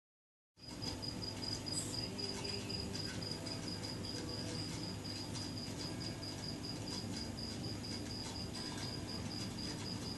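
A cricket chirping in an even, rapid pulse, over a low steady hum; the sound starts about half a second in.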